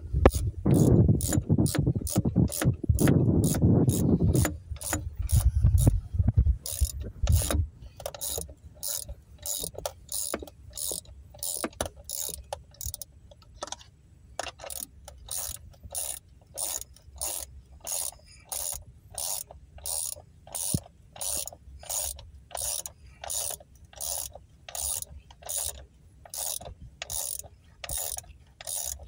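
Socket ratchet wrench clicking in short bursts on each back-swing, about two a second, as bolts are run down on a fiber-optic Y block. During the first seven seconds heavier rubbing and knocking sounds over the clicks.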